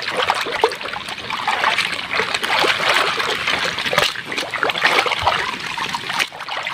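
Water sloshing and splashing as a hand scrubs a muddy plastic toy gun in shallow water, with many small clicks scattered through it.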